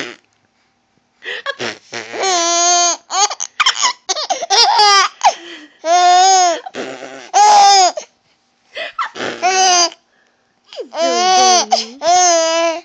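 A baby laughing in about six high-pitched fits of giggles, each lasting one to two seconds, broken by short pauses.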